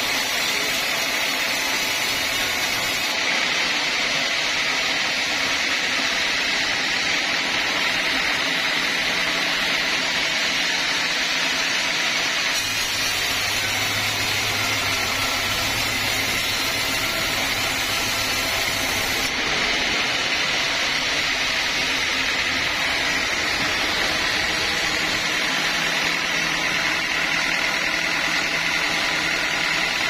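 Band sawmill running steadily as its blade cuts lengthwise through a teak log.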